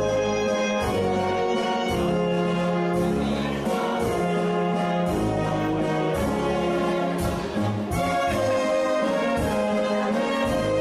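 Live brass band playing dance music: trumpets and trombones carry the tune over a low, note-by-note bass line.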